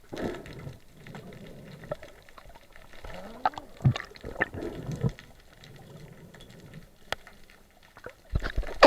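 Water gurgling and bubbling in irregular bursts, with scattered knocks and a louder burst near the end.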